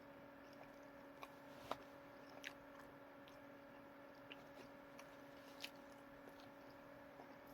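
Faint chewing of food, with a few small mouth clicks and crunches, the loudest about two seconds in, over a steady low hum.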